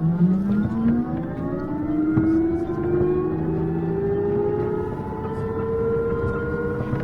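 City bus pulling away from a stop, its drivetrain whine rising smoothly and steadily in pitch as it gathers speed.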